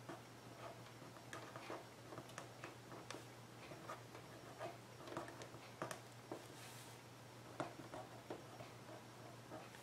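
Faint scratching and tapping of a pen writing letters on a book page, in short irregular strokes, over a low steady hum.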